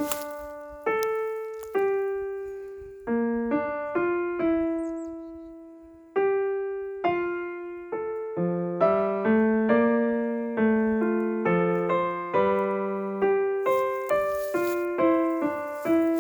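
Background music: a slow piano melody of single struck notes, each dying away, growing busier with more notes together about halfway through.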